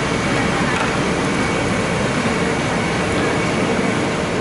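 Cut okra deep-frying in a large kadai of hot oil: a dense, steady sizzle with a low rumble beneath it, as a big slotted ladle stirs through the pieces.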